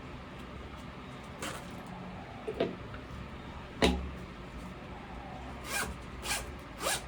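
Six short rasping strokes, spaced irregularly, with a dull knock under the loudest one about four seconds in.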